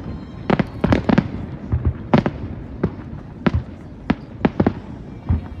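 Fireworks going off: about ten sharp bangs at irregular intervals, over a steady low rumble of further bursts.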